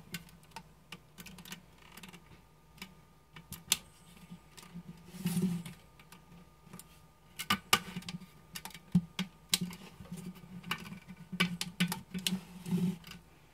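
Irregular clicks, taps and short rubbing noises as a hand handles and moves the jointed arm of a retro Spartus digital alarm clock lamp.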